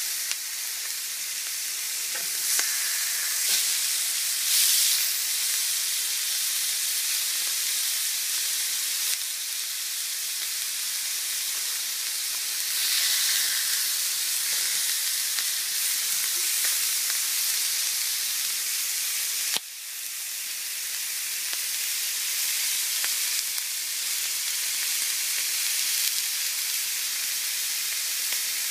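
Pork chops sizzling in a cast iron grill pan: a steady frying hiss that swells louder a few times, with one sharp click about two-thirds of the way through.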